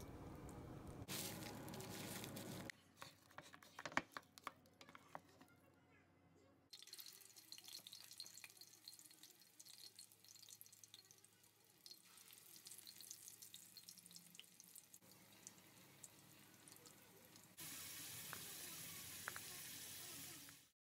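Hot oil sizzling and crackling in a small cast-iron skillet as sardine tsumire on shiso leaves deep-fry, then pumpkin chunks. The sizzle grows louder for the last few seconds. Before the frying there are a few seconds of steady rushing noise and some sharp taps.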